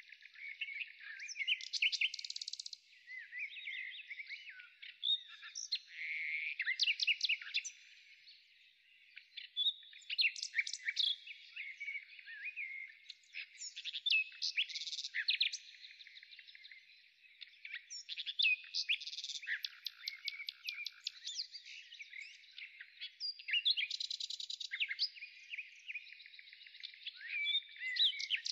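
Birdsong: many short chirps, quick whistled glides and fast trills, coming in busy clusters every few seconds.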